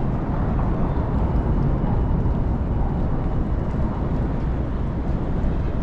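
Steady low rumble of downtown city background noise, with no distinct events standing out.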